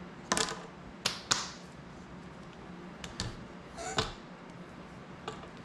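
Sharp plastic clicks and knocks, about seven at irregular intervals, as a small FPV cinewhoop drone and its plastic prop guards are handled and set down on a tabletop.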